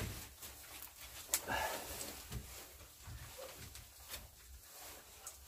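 Puppies eating from a bowl and shuffling about in straw bedding: soft rustling and small clicks, with a sharper click about a second and a half in.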